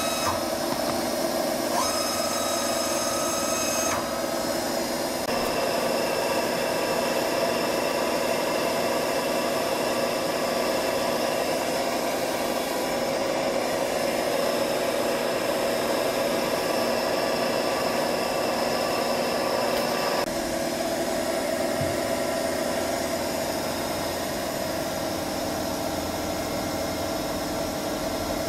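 Wagner BVT 1270 2VS universal milling machine running: a steady mechanical hum made up of several steady tones. The tones change abruptly a few times, near the start, about five seconds in, and again about twenty seconds in.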